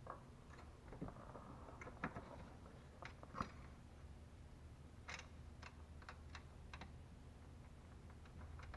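Faint, irregular light clicks and taps of a thin stamped-metal bracket being handled and fitted into place against engine-bay parts.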